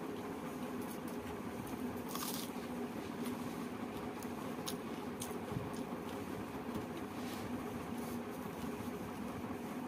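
Fingers squishing and mixing steamed rice on a banana leaf, with soft chewing and a few small crackles and clicks, the clearest about two seconds in. A steady low hum runs underneath.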